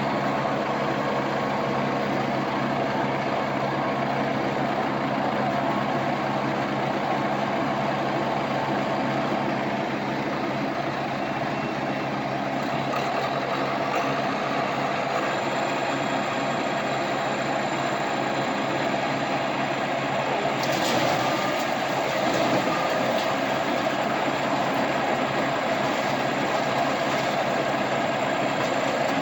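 Engine-driven farm machinery running steadily at harvest, a continuous engine and machinery hum; about 20 seconds in the sound turns brighter and more clattery.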